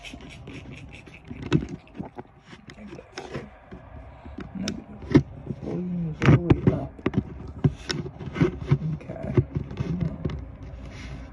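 Irregular sharp clicks and knocks, several a second at times, with short wavering pitched sounds mixed in through the middle.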